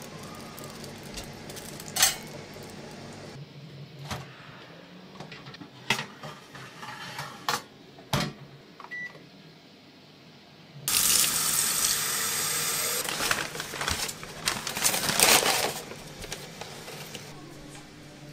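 Kitchen handling sounds: a few sharp clinks and knocks of a metal oven rack and dishes, a short beep, then tap water running for about five seconds.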